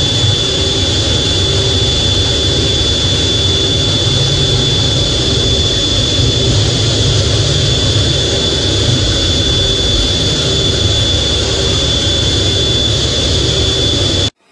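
F/A-18's jet engines running, heard from inside the cockpit: a loud steady rush with a constant high whine, cutting off suddenly near the end.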